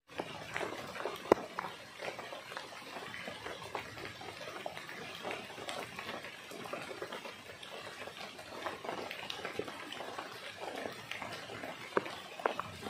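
Rain falling: a dense spatter of small drop ticks, with a few sharper, louder drops about a second in and twice near the end.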